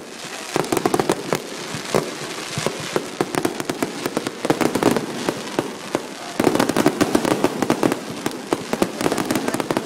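Fireworks going off: a dense run of bangs and crackles that grows louder and busier about six seconds in.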